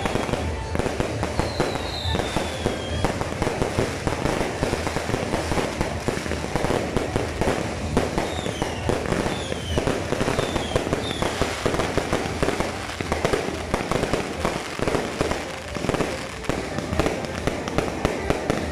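Fireworks barrage: a dense, continuous stream of rapid cracks and pops from many bursting aerial shells. Several short whistles falling in pitch cut through near the start and again around the middle.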